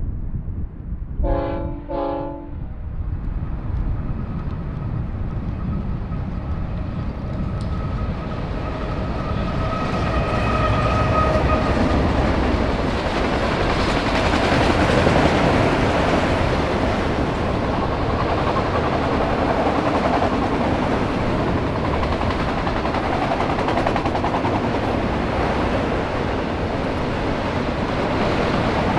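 Train horn sounds two short blasts, each a chord of several notes. A fainter steady tone follows for several seconds, then a train passes at speed with a heavy rumble and rushing wheel noise that peaks about halfway through and stays loud.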